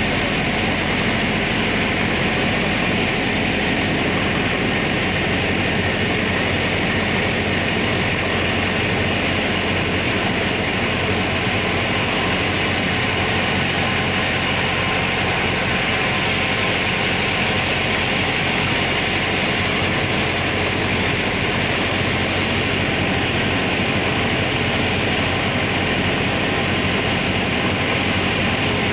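Boat engine droning steadily under way, with a steady rush of water and air noise over it.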